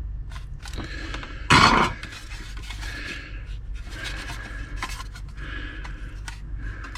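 Scraping and rubbing on hard plastic as the freshly welded motorcycle headlight bowl is handled, with a louder rushing scrape about one and a half seconds in.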